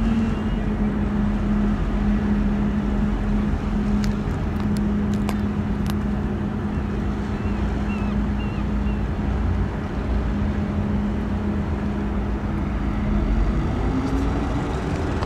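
Steady engine drone over a low rumble, its pitch rising a little near the end as the engine picks up speed.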